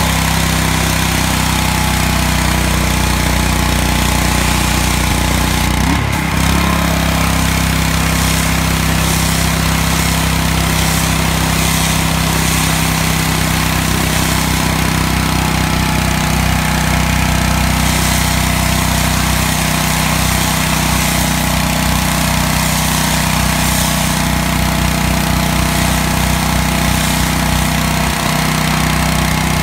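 Makita EHW200 engine-driven high-pressure washer running steadily under load, its small engine humming beneath the hiss of the high-pressure water jet spraying onto asphalt.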